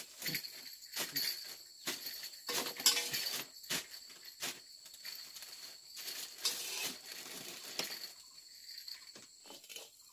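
Irregular clinks and knocks of kitchen utensils and dishes, with one sharper knock about three seconds in, over a steady high-pitched insect chorus.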